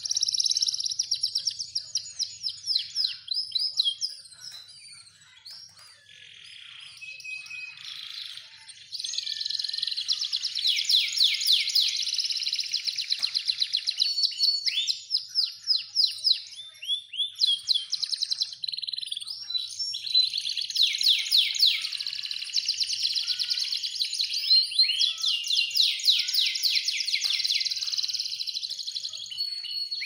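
Canary singing: long runs of fast, high trills, with a quieter stretch of softer, scattered notes about four to nine seconds in.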